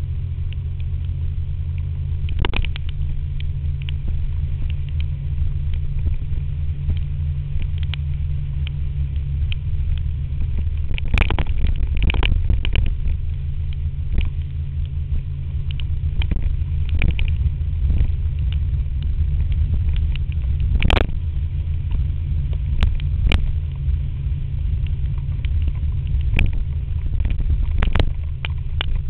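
Wind rumbling heavily on the microphone of an action camera mounted on a moving scooter in rain, with a faint steady engine tone underneath. Scattered sharp taps and clicks come through, most clustered about eleven seconds in and one strong one about twenty-one seconds in.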